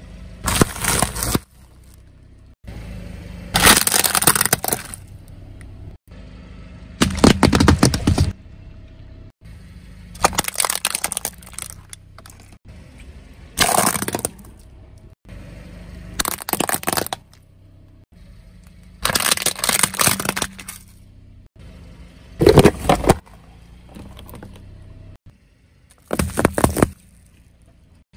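A car tyre rolling over packaged foods and crushing them one after another, about ten loud crackling crunches of a second or so each, some with packets bursting. Between the crunches a low vehicle rumble is heard.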